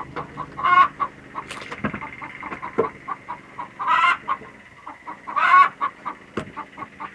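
Chickens clucking steadily, with three louder squawking calls: about a second in, at four seconds and at five and a half seconds. A few sharp knocks of an axe on firewood come between them.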